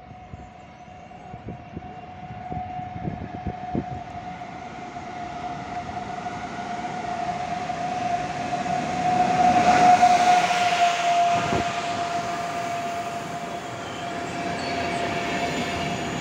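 Siemens EU44 Husarz electric locomotive hauling an intercity passenger train as it approaches and passes. A steady high whine runs over a building rumble, which is loudest about 10 s in. The whine dips slightly in pitch just after that as the locomotive goes by, and the rumble of the coaches follows.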